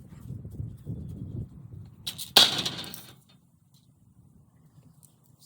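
A sudden loud crash about two and a half seconds in, dying away within a second, after a stretch of low rumbling noise.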